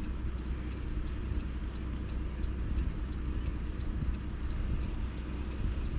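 Steady low road rumble of a car driving, heard from inside the cabin.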